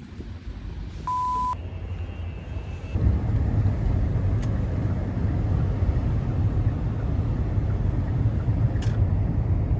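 A short high electronic beep about a second in, then from about three seconds a steady low rumble like a moving vehicle's road noise.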